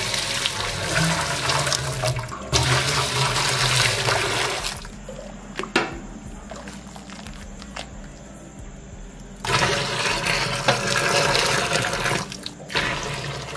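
Boiled-down liquid being poured into a stainless steel vessel: a steady rush of pouring for the first five seconds or so, a quieter pause, then a second pour about nine seconds in.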